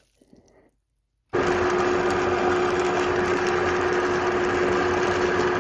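Vitamix blender running, blending fresh turmeric, ginger, amla and water. It starts suddenly about a second in, runs loud and steady with a constant whine, and stops abruptly near the end.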